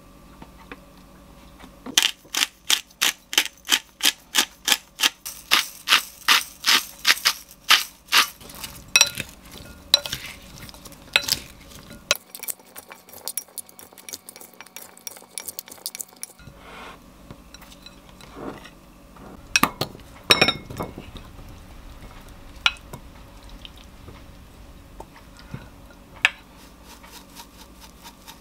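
Kitchen utensils clicking, tapping and scraping in a glass mixing bowl as a salad is seasoned and then tossed with two wooden spoons. It opens with a fast, even run of light clicks, about three a second for several seconds, and thins out to scattered taps with a few louder knocks and scrapes near the middle.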